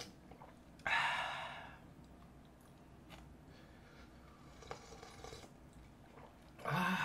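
Slurping hot, spicy mala soup broth off a metal spoon. There is one loud slurp about a second in and quieter mouth sounds after it, then another slurp with a breathy voiced exhale near the end.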